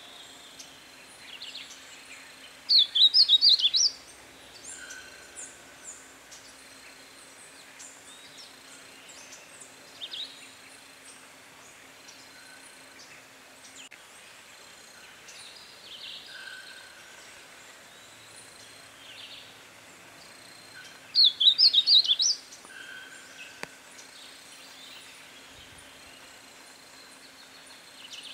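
Negrinho-do-mato singing: two short, loud phrases of quick high notes, about 3 seconds in and again about 21 seconds in. Faint chirps of other birds and a faint steady hum run between them.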